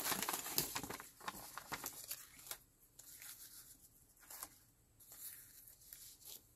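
Paper and card ephemera crinkling and rustling as hands pick it up and shuffle it, busiest in the first second, then sparser crackles.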